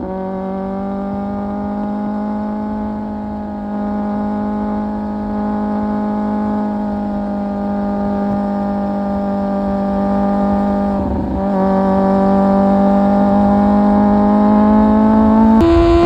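Kawasaki Z750's inline-four engine through an Akrapovic exhaust, running under way with the revs climbing slowly. There is a short break in the note about two-thirds of the way through, and a sudden jump up in pitch near the end.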